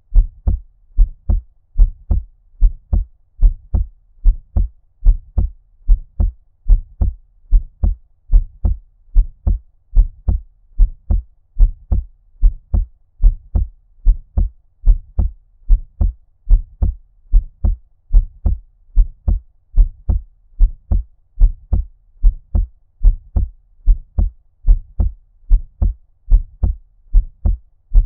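Heartbeat at a normal resting rate: steady lub-dub pairs of low thumps, a little over one beat a second. The sound is muffled, as if heard underwater, in the manner of ear cupping.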